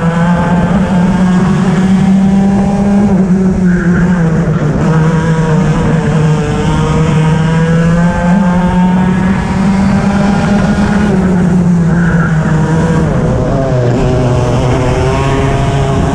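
Racing kart engine running hard at high revs, its pitch dropping as the kart slows for corners, about three seconds in and again between about eleven and fourteen seconds, then climbing back as it accelerates.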